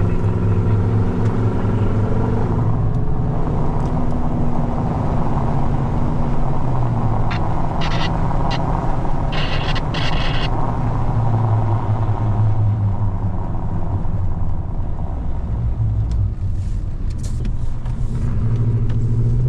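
Pickup truck heard from inside the cab while driving on a paved road: a steady low drone of engine and tyre noise. A few brief higher-pitched sounds come through about eight and ten seconds in.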